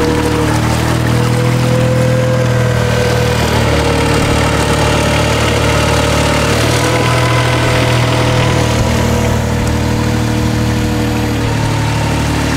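Kubota diesel engine of a Weedoo aquatic weed-clearing boat running steadily, driving the hydraulic pump that powers the boat, with small shifts in pitch now and then.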